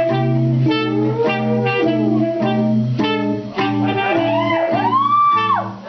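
Jazzy backing music: a steady, pulsing bass and chords under a melody line, with a swooping glide up and then down about five seconds in.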